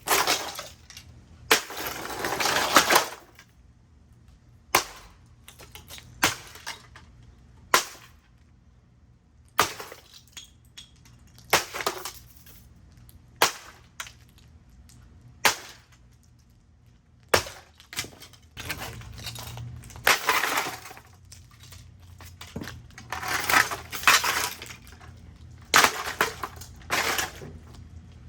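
Hoover Rewind UH71013 upright vacuum cleaner being smashed apart: hard blows land every second or two at an irregular pace, some followed by a longer crash and clatter of breaking housing.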